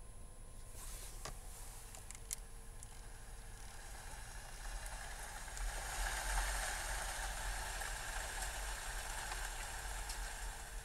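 Recorded rainfall from a song's intro playing through a car audio system with a subwoofer: a hiss of rain that swells about five seconds in over a low rumble, after a few light clicks near the start.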